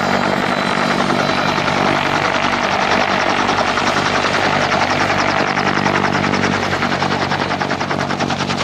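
Westland Whirlwind HAR.10 helicopter with its Gnome turboshaft engine, flying past low with a steady engine note and rotor noise. A rapid, even chop of the rotor blades stands out more clearly in the second half.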